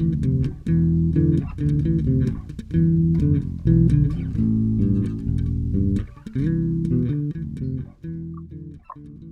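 Intro music led by a plucked bass guitar with guitar, fading out near the end.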